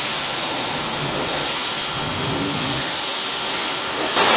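Pressure washer spray hissing steadily as the jet rinses soap foam off a car's body panels. The spray gets louder about four seconds in.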